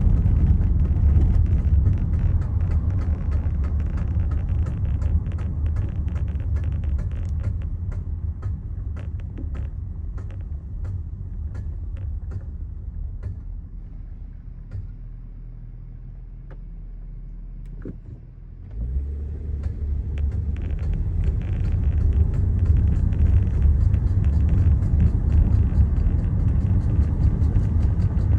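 Car driving with a heavy low rumble that dies down over the first half, then comes back abruptly about nineteen seconds in and builds again. Sharp irregular ticks run through the first half. This is the unexplained noise the new owner noticed on the way home.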